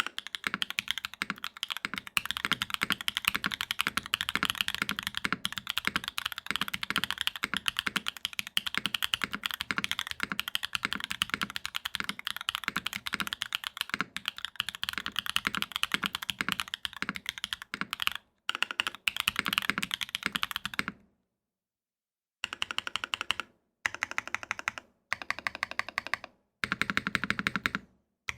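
Rapid typing on a JiU TKL mechanical keyboard with stock Gateron Type R switches, an aluminum plate and KKB keycaps: a fast, even patter of keystrokes. After about 21 s it breaks into short bursts of typing with silent gaps between them.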